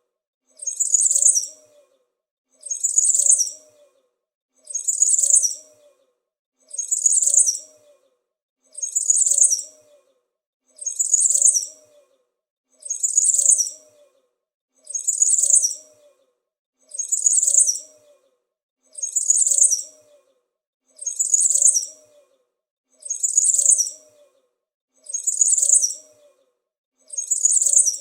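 A small bird chirping: the same short burst of high chirps repeats at an even pace, about once every two seconds, as a looped sound effect.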